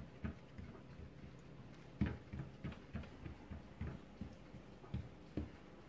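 Oiled hands patting and pressing msemen dough flat on a baking mat: soft, uneven pats, a few a second, the sharpest about two seconds in.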